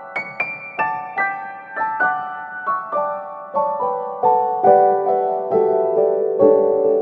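Background music: a piano playing a slow melody of single struck notes, about two or three a second, each ringing on and fading.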